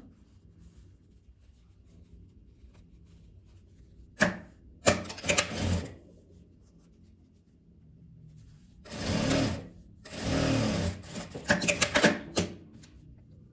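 Industrial straight-stitch sewing machine running a topstitch in short bursts of about a second each, with several sharp clicks near the end.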